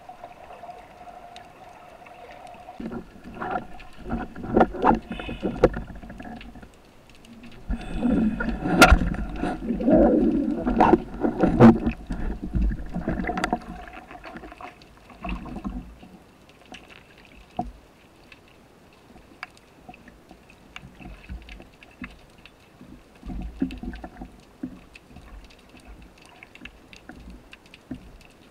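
Water sloshing and gurgling with many scattered sharp clicks and knocks, loudest in a burst about eight to twelve seconds in, then quieter with only sparse clicks.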